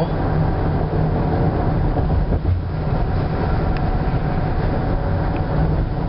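Car driving at highway speed, heard inside the cabin: a steady low rumble of tyres and engine on the road surface, with a faint steady whine above it.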